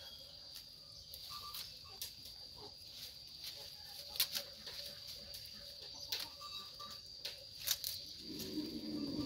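Young goats pulling at and chewing a bunch of fresh leafy branches: scattered clicks and crunches of leaves and stems. Near the end, a low pitched sound lasting about a second.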